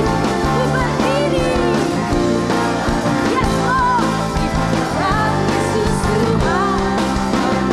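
Live worship music: lead singers and a choir sing an Indonesian praise song over a full band.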